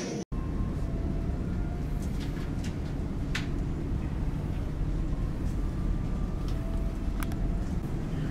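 Steady low rumble of a large car ferry underway, heard inside the ship, with a few light clicks.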